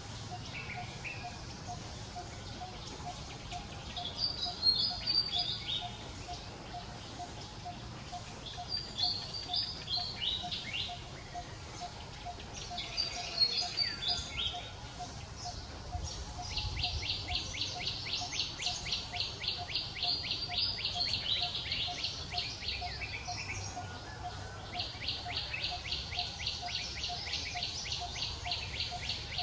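Birds chirping outdoors: three short high phrases of falling chirps, then from about halfway through a long, rapid, evenly pulsed high trill that pauses briefly and starts again near the end.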